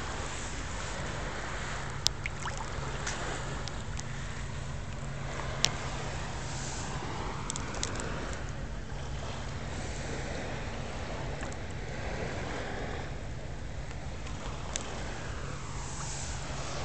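Shallow seawater lapping and gurgling gently against rocks at the water's edge, over a steady low hum, with a couple of sharp clicks.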